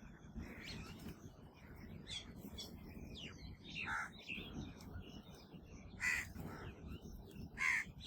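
Crows cawing, with three loud caws about four, six and nearly eight seconds in, among softer chirps of other birds.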